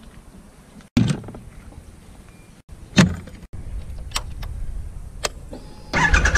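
Sharp clicks and knocks of a Triumph motorcycle's metal pannier latch and lid being worked, two loud knocks about two seconds apart, then lighter clicks as the ignition key is turned. A louder, fuller sound starts just before the end.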